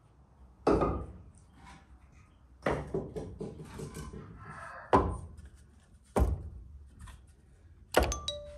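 A series of dull knocks and thuds, five in all, one to two seconds apart, the last one near the end with a short metallic ring.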